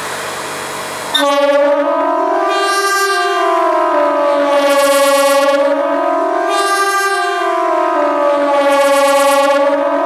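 Kockum Sonics KTG 10 electronic siren on a high mast, its ring of horn loudspeakers sounding the Swiss 'general alarm' signal: a loud wail of several tones together, gliding slowly up and down in pitch. It cuts in abruptly about a second in, after steady background hiss.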